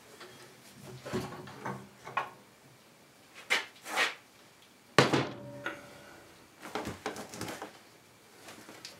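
Clunks, knocks and scrapes of a small snowblower engine being lifted off its frame and carried away, with a sharp bang about five seconds in as the loudest of them.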